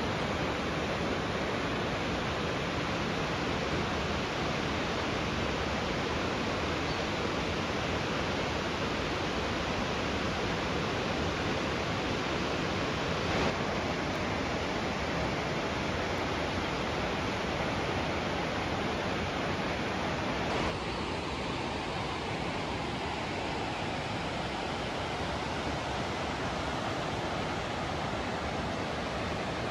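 Steady rushing noise of a waterfall, an even wash of falling water with no distinct events. About two-thirds of the way through it becomes slightly quieter.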